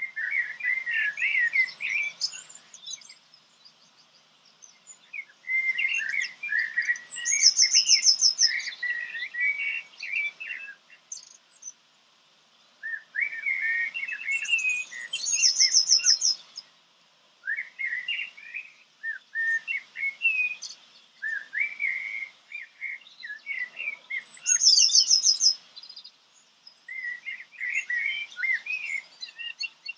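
Songbird singing: repeated warbling phrases, several of them ending in a fast high trill, with short pauses between them.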